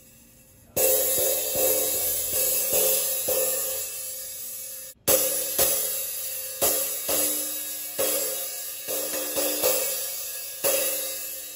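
Sabian B8 cymbal turned into a rivet cymbal, with loose screws through drilled holes that jingle when it sounds. It is struck repeatedly, about two hits a second, and each hit rings on with a sizzle. The sound breaks off abruptly for an instant about five seconds in, then the strikes carry on.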